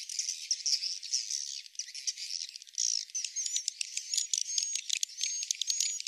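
Edible-nest swiftlets twittering: a dense stream of rapid high-pitched chirps and clicks with short level whistles, thin and with no low sound at all.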